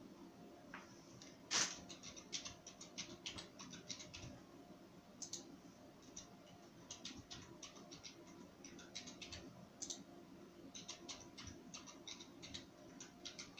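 Computer keyboard keys clicking faintly in short bursts of typing, with one sharper click about a second and a half in.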